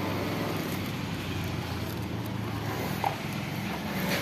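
Motor scooter engine idling steadily, with one brief short high note about three seconds in.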